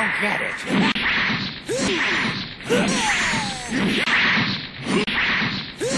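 Cartoon sound effects: a rapid run of whooshing swishes, one or two a second, with short sliding squeaks between them.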